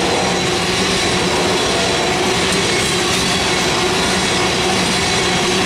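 Tank cars of a freight train rolling past close by: a steady, unbroken noise of steel wheels on rail, with a few thin steady tones running through it.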